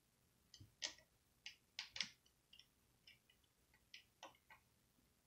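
Small screwdriver driving a screw into a laptop's plastic screen housing: a series of faint, irregular small clicks and ticks, the loudest a little under two seconds in.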